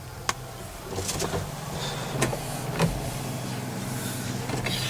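A John Deere 6400 tractor's diesel engine idling as a steady low hum, heard from inside the cab, with several sharp clicks and knocks over it.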